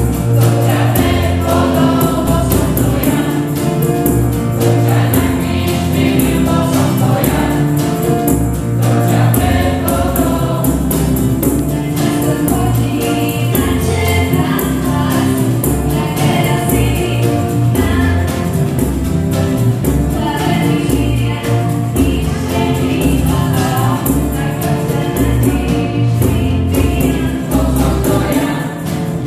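Small church vocal group singing a worship song into microphones, accompanied by acoustic guitar and a tambourine keeping a regular beat.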